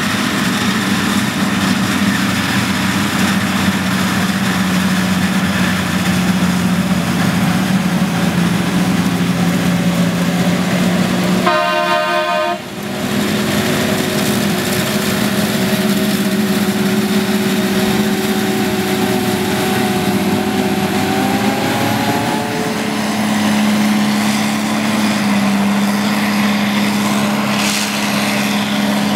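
John Deere self-propelled forage harvester and the tractor running alongside it, diesel engines and chopping machinery running steadily while harvesting maize for silage. About twelve seconds in a short horn-like tone breaks the steady drone, and a little after twenty seconds the engine note shifts.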